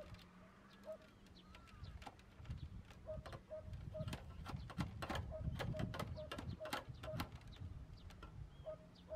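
Rustling leaves and a run of sharp clicks and snaps from hands working grapevines on a trellis, busiest from about three to seven seconds in. A short note repeats about three times a second in the background, on and off.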